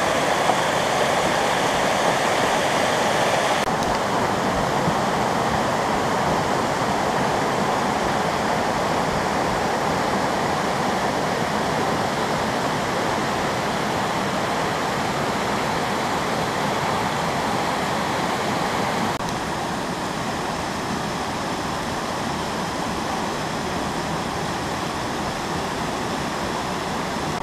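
Water rushing steadily down shallow cascades over stepped rock terraces, a loud, even rush of white water. Its tone shifts suddenly twice, about four and nineteen seconds in.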